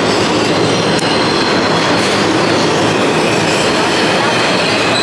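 New York City subway train running along the platform: a loud, steady rumble of wheels on rail with a thin, high wheel squeal over it.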